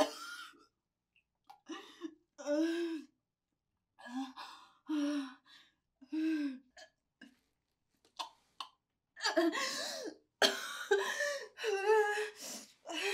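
A woman retching over a toilet: short, strained heaves about once a second, then louder, longer gagging and sobbing from about nine seconds in.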